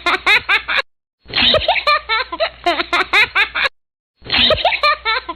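Laughing in quick, pulsing bursts. The same short laughter clip is looped, stopping dead and restarting after brief silences, which marks it as an added laughter sound effect.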